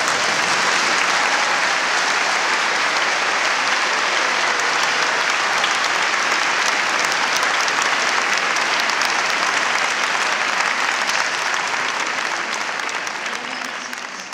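A large seated audience applauding steadily, fading out near the end.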